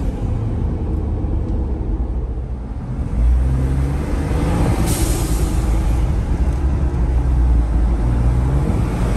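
2022 Ford Bronco's turbocharged engine heard from inside the cab, picking up under acceleration about three seconds in. About five seconds in comes one short blow-off valve hiss, the "psh" of turbo boost vented through the newly fitted blow-off valve adapter.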